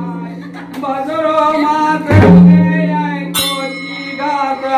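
Men singing a Kudmali sahrai folk song, with a heavy barrel-drum stroke about two seconds in whose low tone rings on for over a second, and a sharp metallic clash of hand cymbals a little later.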